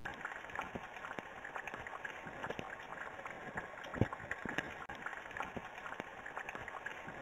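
Batter fritters deep-frying in hot oil in a pan: a steady sizzling crackle with scattered small pops and one louder pop about four seconds in.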